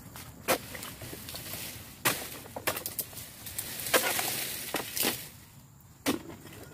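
Oil palm harvesting chisel (dodos) on a long pole chopping into the frond bases of an oil palm: about eight sharp chops at irregular intervals, with a burst of rustling palm fronds around four seconds in.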